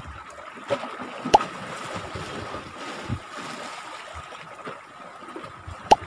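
Small sea waves washing and trickling among shoreline rocks, with two sharp clicks, one about a second in and one near the end.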